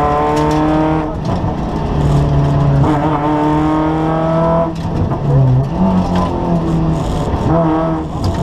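Kia Picanto rally car's engine heard from inside the cabin at full throttle, revs climbing, cut by a gear change about a second in, climbing again. About four and a half seconds in the revs drop, followed by shorter, uneven bursts of throttle.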